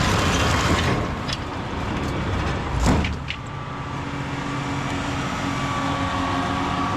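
John Deere 7210R tractor running under load as it pulls a root-removal machine through rooty ground, with a dense, noisy churning at first. There is one sharp knock about three seconds in, then a steadier engine drone.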